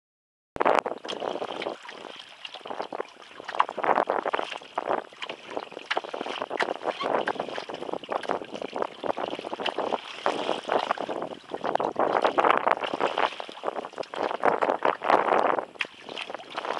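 Small waves slapping and splashing against a plastic kayak's hull in choppy water, an uneven wash of splashes that swells and fades every second or two.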